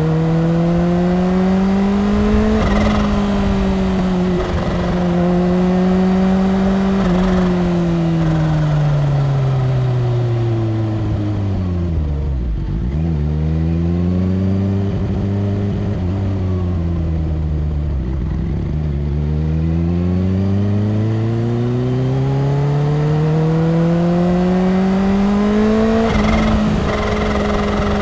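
Kawasaki Ninja H2's supercharged inline-four engine under way, heard from the bike. The engine pitch climbs at the start and holds, then falls away steadily about a third of the way in. It stays low for several seconds, then builds up again through the last part.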